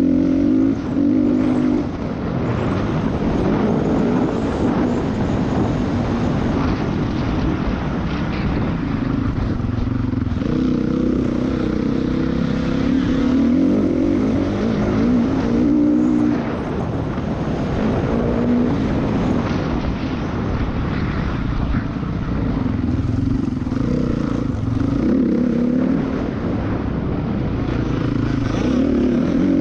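Motocross dirt bike engine heard from the rider's onboard camera, the revs rising and falling repeatedly with short drops off the throttle, over steady wind and rushing noise on the microphone.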